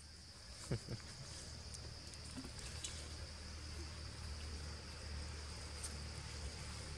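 Insects droning steadily in one high, even note over a low background rumble, with a few faint ticks.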